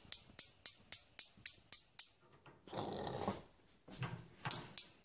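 Gas range spark igniter clicking steadily, about four clicks a second, while a burner is being lit. The clicking stops for about two seconds midway, when a short rough rasping sound comes, and starts again near the end.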